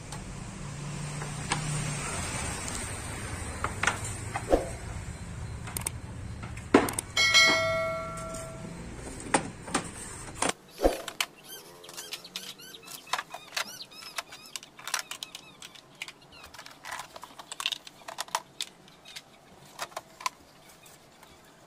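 Hard white plastic cabinet panels, drawer rails and a drawer knocking and clattering against each other and the cardboard box as they are handled and lifted out, with many sharp clicks and taps. About seven seconds in there are a couple of louder knocks and a short steady high-pitched squeal lasting about a second and a half.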